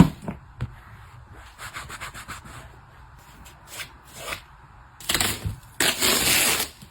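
Household items being handled and rubbed: scattered light taps and rustles, then two louder scraping rubs near the end, the second one longer.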